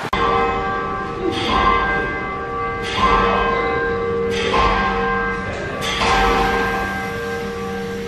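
Large tower bells ringing, with a new strike about every second and a half and each one ringing on under the next. These are the bells of Perth's Bell Tower, the Swan Bells.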